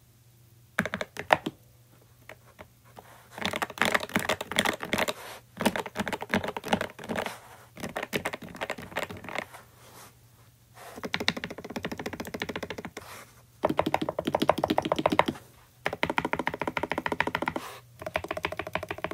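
Mechanical keyboard with lubed switches and added foam being typed on. A few single keystrokes come first, then several runs of fast typing with short pauses between them.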